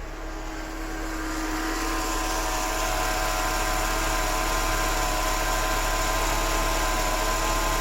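Mercedes M111 1.8-litre four-cylinder engine idling steadily, with a steady whine over the running noise. It grows louder over the first couple of seconds, then holds even. The engine has just started readily on a newly fitted crank position sensor.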